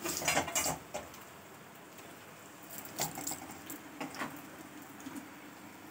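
Sago and potato balls deep-frying in sunflower oil, a steady sizzle, with sharp clinks and knocks in the first second and again about three and four seconds in.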